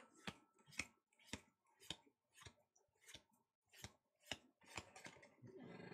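Pokémon trading cards flicked through by hand one at a time, each card making a short faint snap as it slides off the stack, about two a second.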